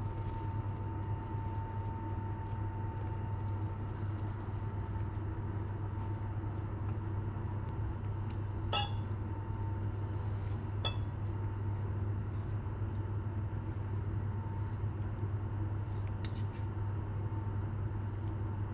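Metal fork and spoon scraping and clinking against a ceramic plate, a few sharp ringing clinks, the loudest about halfway through, over a steady low hum.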